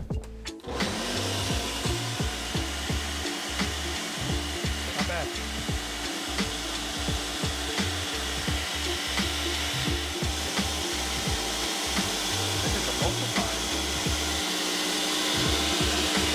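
Countertop blender motor spinning up about a second in and then running at a steady speed, pureeing soft chili peppers in oil into a sauce, with irregular knocks from pieces hitting the jar.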